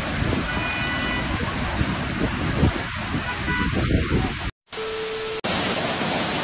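Muddy floodwater rushing in a torrent, with wind buffeting the microphone. A short break comes about two-thirds of the way in, followed by a brief steady tone, then the rushing water resumes.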